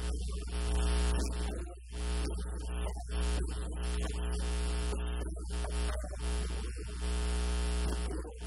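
Loud, steady electrical mains hum on the recording, with a man's voice underneath it, muffled and hard to make out.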